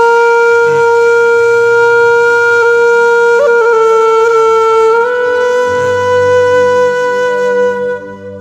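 Slow music with a wind instrument holding long sustained notes over a low drone, with a brief ornament about three and a half seconds in and a small step up in pitch at about five seconds. The melody fades out near the end.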